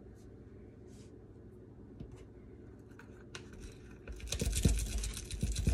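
Garlic cloves rolled under the palm inside a silicone tube garlic peeler on a cutting board, loosening their papery skins. The rough rubbing and rustling starts about four seconds in.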